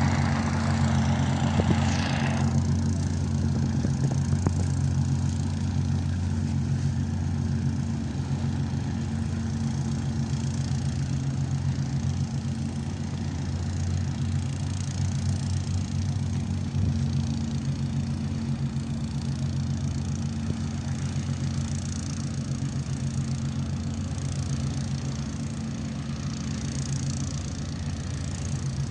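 An engine running steadily at idle, an even low hum that holds through the whole stretch. A rushing noise over it stops about two seconds in.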